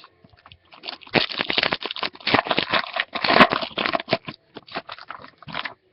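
Crinkling and crackling of a foil trading-card pack wrapper being handled and torn open, a dense run of quick rustles.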